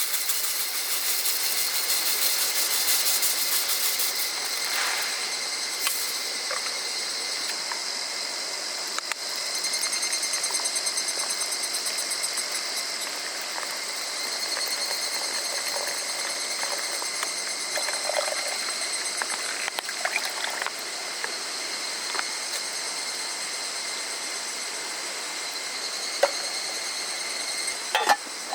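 Chorus of summer cicadas, higurashi (evening cicadas) among them, ringing steadily with rapid pulsing trills that swell and fade, over a soft hiss of running water. A few light clicks near the end.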